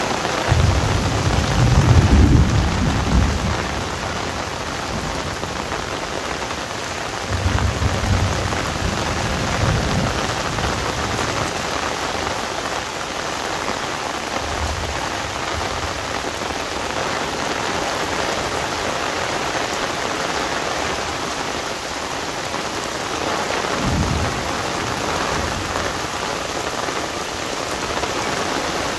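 Heavy rain falling steadily on an umbrella. Low thunder rumbles come and go over it: the loudest in the first few seconds, another around eight seconds in, a short one in the middle, and one more a few seconds before the end.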